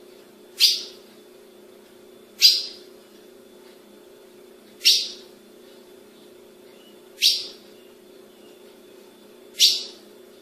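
Ultramarine grosbeak (azulão) giving five short, sharp notes, spaced about two to two and a half seconds apart, over a steady faint low hum.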